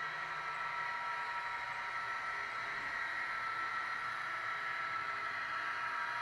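HO-scale brass model SD70M diesel locomotive running along the track, a steady thin whirring hum from its motor and onboard sound system.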